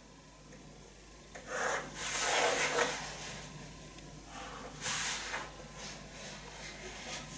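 Pencil scratching over paper while a plastic set square is slid and held against it, drawing pattern lines. There are two longer scraping strokes, about one and a half and four and a half seconds in.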